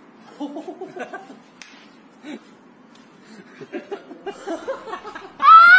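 Faint talking with light chuckling, then near the end a sudden loud, high-pitched held vocal cry.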